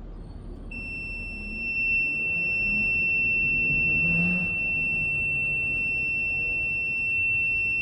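High water alarm buzzer sounding one steady, high-pitched continuous tone that comes on about a second in, over a low background rumble: the alarm is being tested.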